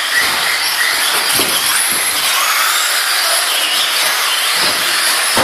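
Electric 1/10-scale off-road RC buggies (Associated B44) running hard: the motors and drivetrains whine, rising and falling in pitch with throttle. There are a few short thumps, one near the end.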